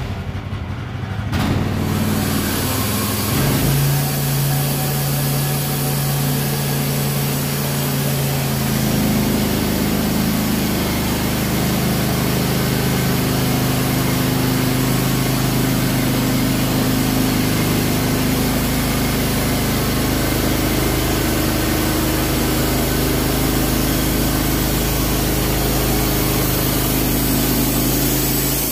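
Logosol B751 bandsaw mill running under power. Its engine comes up to cutting speed about three seconds in, then holds a steady drone while the band blade saws lengthwise through a larch log, with a constant hiss of cutting.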